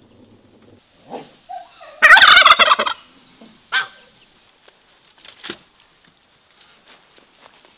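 Domestic turkey gobbling: one loud, fast warbling call lasting about a second.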